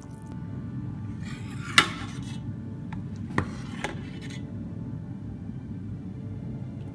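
Metal ladle clinking and scraping against a stainless steel saucepan while scooping thick soup: one sharp clink about two seconds in, then two lighter ones a second and a half later. Background music runs underneath.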